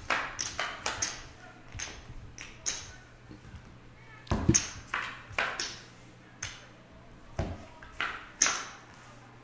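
Sharp, irregular clicks and taps of poker chips being handled and playing cards being dealt onto the table felt, with one heavier knock about four and a half seconds in.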